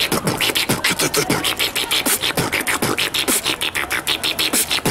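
A man beatboxing into a handheld microphone: a fast, steady beat of low kick-drum thumps and hissy snare and hi-hat sounds made with the mouth.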